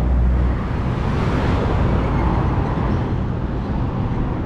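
Road traffic on a multi-lane highway, cars driving past. Steady noise with a low rumble in the first half second.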